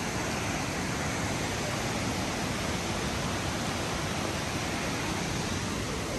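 Steady rush of the Tallulah River running over boulders and small rapids.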